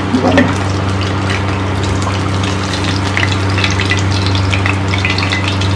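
Oil sizzling around masala-coated fish frying in a kadai, the crackle growing busier after about two and a half seconds, over a steady low hum.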